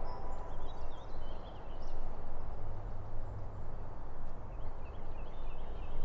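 Open-field ambience: a steady background hiss with small birds chirping faintly, and a low hum joining about halfway through.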